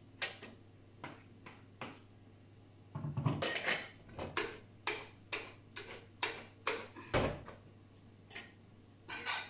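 Kitchen clatter of cookware and utensils: a string of sharp clinks and knocks at uneven intervals as pots, lids and utensils are handled on the hob and counter, with a heavier, deeper knock about seven seconds in.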